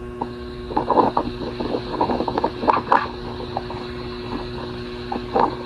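Steady electrical mains hum, with faint irregular soft sounds over it during the first half and again briefly near the end.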